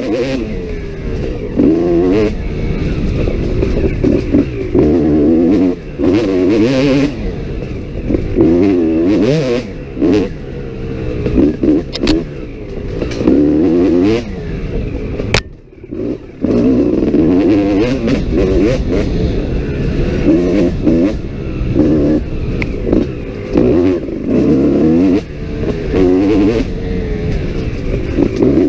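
Kawasaki KX250 dirt bike engine revving up and down over and over as the throttle is worked, with knocks and clatter from the bike over the rough trail. A little past halfway there is a sharp knock and the engine drops off for about a second before it picks up again.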